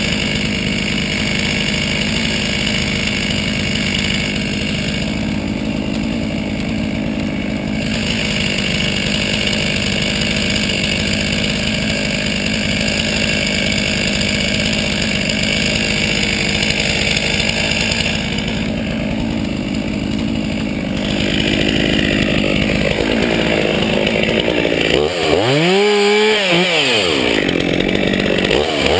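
Gas chainsaw running steadily throughout, its engine note wavering near the end.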